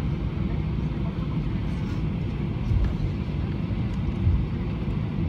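Cabin noise of an Airbus A320-200 taxiing: a steady low rumble of the jet engines at taxi power and the wheels rolling on the taxiway, with a couple of slightly louder low bumps.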